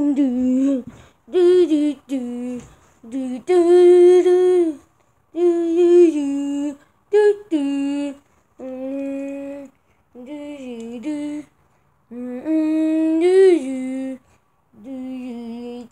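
A child's voice singing a wordless tune in a series of held notes, with short breaks between them.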